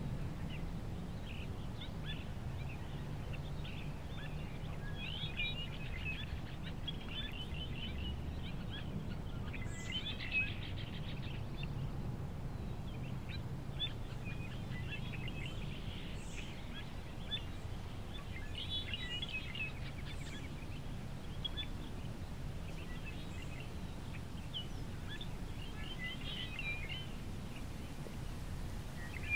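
Small birds chirping on and off over a steady low hum of background noise.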